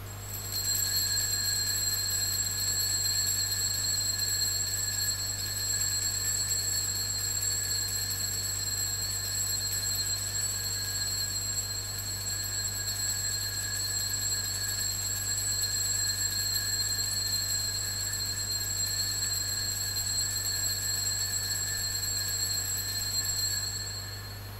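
Altar bells rung without a break as the priest blesses the people with the monstrance at benediction: a steady, bright ringing that starts just after the beginning and stops about a second before the end.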